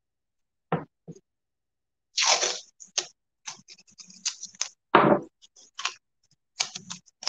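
Hands working painter's tape and supplies on a wooden work table: a series of short knocks and scratchy rustles, with a heavier thump about five seconds in.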